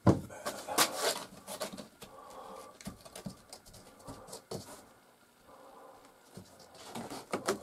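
Handling sounds of a vinyl-covered ceiling panel being pressed and pulled back from its wooden framing: a few sharp clicks and light knocks at the start, then scattered faint scrapes and ticks, with more clicks near the end.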